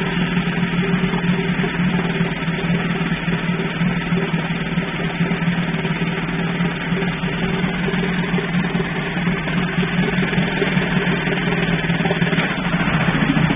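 Veterok 9.9 two-stroke outboard motor running steadily at low revs, a steady hum with no break; the sound shifts slightly near the end.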